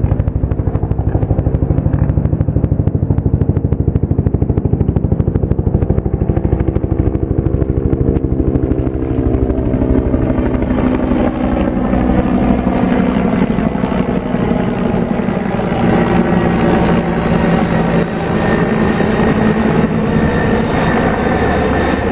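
Firefighting helicopter with a slung water bucket flying overhead: a fast, steady rotor beat with engine whine. About halfway through the sound brightens, with a rising whine, as it comes nearer.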